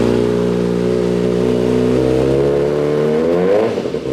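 2019 Kawasaki ZX-6R's inline-four engine, breathing through a Hotbodies Stinger slip-on exhaust, idling loudly. About two and a half seconds in it revs up, the pitch climbing, then drops sharply back to idle near the end.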